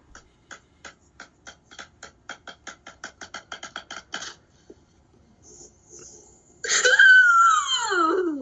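A drumroll of quick taps that speed up steadily over about four seconds and stop. Near the end a loud vocal cry sweeps steeply down in pitch.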